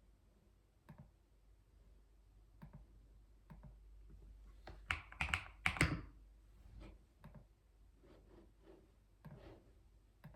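Typing on a computer keyboard: a few scattered keystrokes, then a quick run of louder keystrokes about five seconds in, then scattered keystrokes again.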